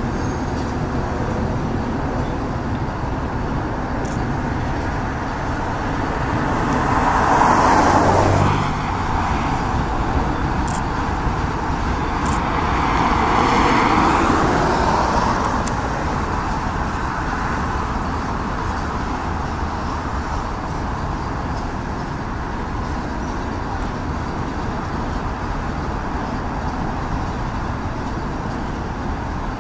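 Steady rumble of a freight train rolling by, BNSF GE diesel locomotives hauling intermodal cars. Two louder swells, one about 7 to 8 seconds in and one around 13 to 15 seconds, sound like road vehicles passing close by.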